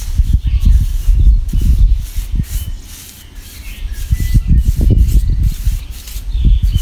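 Wind buffeting the microphone, an uneven low rumble that eases off about three seconds in and then picks up again, with a few faint bird chirps.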